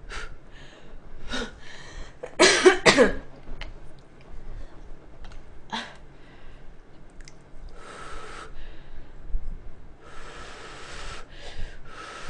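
A person eating cup instant noodles with chopsticks: small clicks of chopsticks and chewing, and hissy slurps of noodles later on. A loud cough comes about two and a half seconds in.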